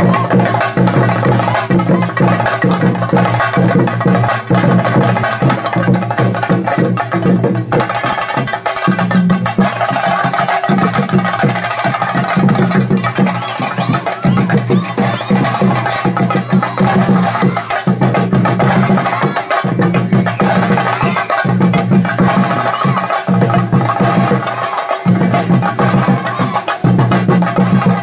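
Chenda drums beaten with sticks in a fast, dense, continuous rhythm: the traditional drumming that drives a Theyyam dance.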